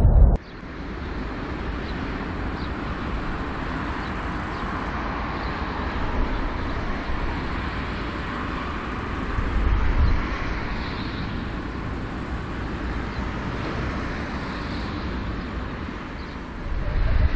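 A louder burst of jet noise cuts off abruptly about half a second in. It gives way to the steady hiss and rumble of an Airbus A340-300's four CFM56 jet engines running at taxi power, swelling briefly about ten seconds in.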